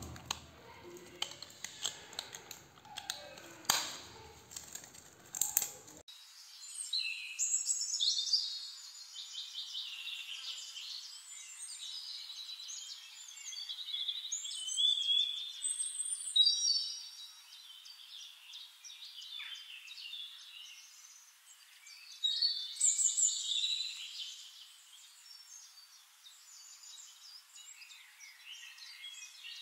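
Clicks and rustles of plastic being handled for the first few seconds. Then birds singing: many overlapping high chirps and whistles.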